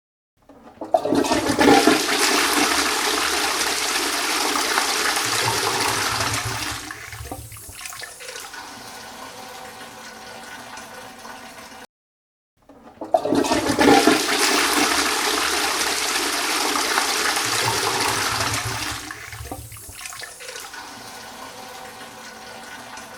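Toilet flushing, twice: each flush opens with a loud rush of water lasting about six seconds, then falls to a quieter steady running of water. The first stops abruptly about halfway through, and the second starts after a brief silence.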